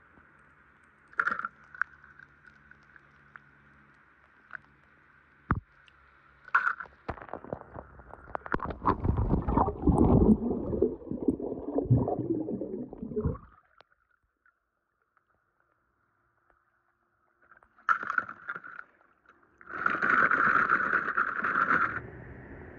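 Pool water sloshing and splashing as a hand pushes a small diecast toy car through it, loudest for several seconds in the middle. A few sharp clicks of the toy car being handled come before, and a short burst of hissing, rushing water noise comes near the end.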